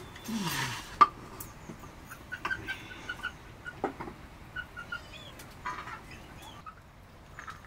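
Chickens clucking in short scattered calls, with a sharp knock about a second in.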